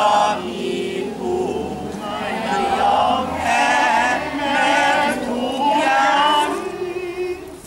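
A crowd of men's and women's voices singing together in phrases of held, wavering notes with short breaks between them, stopping near the end.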